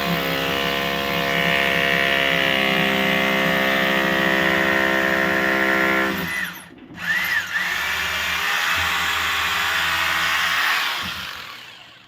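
Hilti TE-2 rotary hammer drill running steadily while drilling. It stops briefly about six and a half seconds in, starts again, then winds down near the end.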